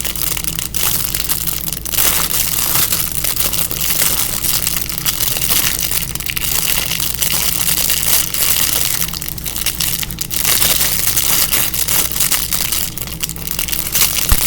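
Plastic packaging crinkling and crackling close to the microphone as a small banana-shaped squishy toy is unwrapped and handled.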